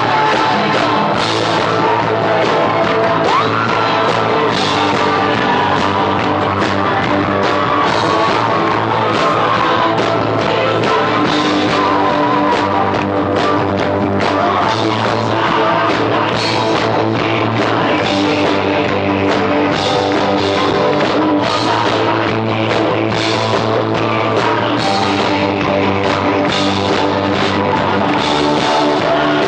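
A band playing a rock song live, with drum kit, guitar and singing, loud and unbroken.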